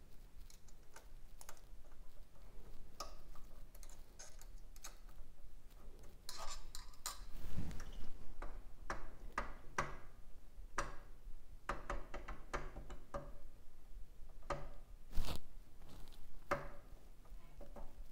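Scattered small metallic clicks, clinks and taps of hand tools working on a mini bike's clutch band brake arm and cable. The brake adjustment is being opened up so the band stops rubbing the clutch drum. The loudest knock comes about fifteen seconds in.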